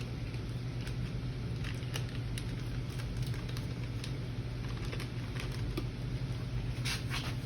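Light clicks, taps and rustles of kitchen items being handled, with a small cluster of sharper clicks near the end, over a steady low hum.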